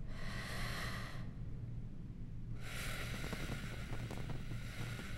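Sound-designed sci-fi room ambience: a low steady hum, with a wash of airy hiss over the first second and another from about two and a half seconds in, faint crackling ticks under the second.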